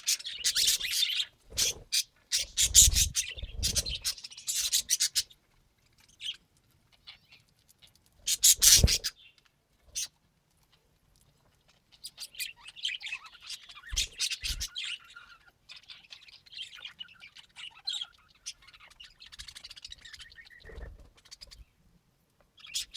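Pet budgerigars chirping and chattering in quick, high, broken bursts. Loud rustling and knocking sounds come in the first few seconds and again about nine seconds in.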